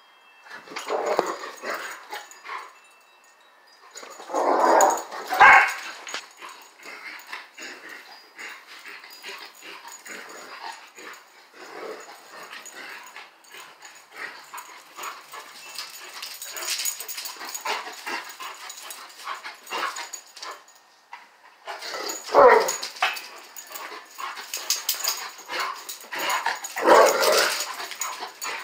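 Dogs playing rough: several loud bursts of barking and yipping, with quieter scuffling noises between them.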